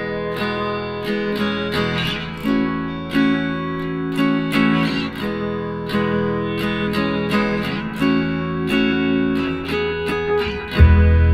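Background music led by plucked acoustic guitar, with a strong bass coming in near the end.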